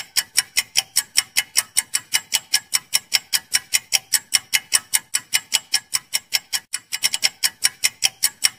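Countdown-timer sound effect: fast, even clock-like ticking, about four to five ticks a second.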